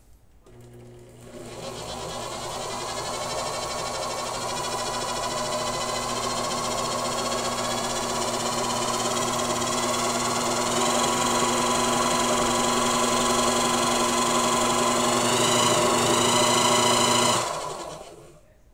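Brushed motor driving a three-phase generator by belt, running under load with a steady hum and whine that slowly grows louder and higher as its speed is raised. It cuts out abruptly near the end and winds down, a stop the builder suspects was the motor's brush failing.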